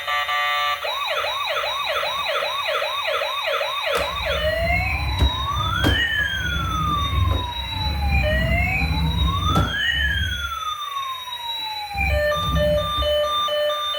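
Electronic emergency-vehicle siren. It starts as a fast yelp of about three sweeps a second, then after a few seconds changes to a slow wail rising and falling over a low rumble with a few knocks. Near the end it switches to a steady pulsing beep.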